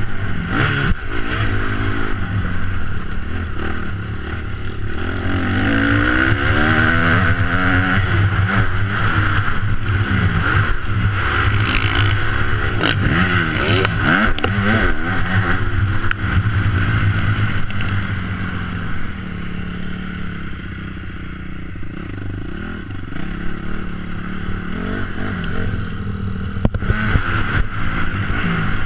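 Motocross bike engine revving up and down repeatedly as the rider accelerates and backs off around the track, easing off for a few seconds about two thirds of the way through. Scattered knocks and scraping clatter from the bike over the rough dirt run through it.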